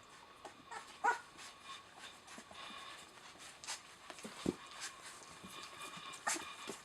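Eleven-day-old Rottweiler puppies whimpering and squeaking in short, scattered calls, with a few light clicks among them.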